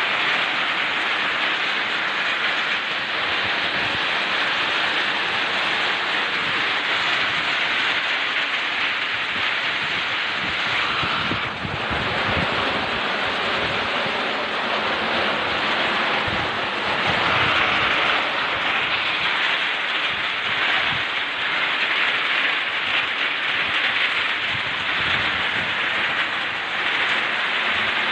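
Typhoon wind and heavy rain lashing a coconut plantation: a loud, steady rushing noise that swells slightly at times.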